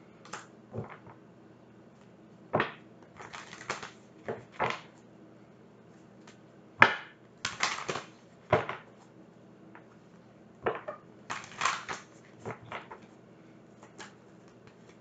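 A deck of tarot cards being shuffled and handled: irregular snaps and short clusters of quick crisp card flicks with quiet gaps between them, the sharpest snap about seven seconds in.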